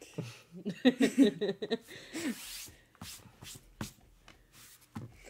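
A short indistinct vocal sound, a murmur or laugh, then a few soft separate clicks and taps of playing cards being handled on a tabletop.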